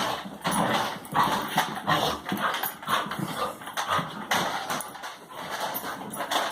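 A dog tussling with a toy remote-control car, with irregular knocks, scuffles and clatter and dog noises throughout.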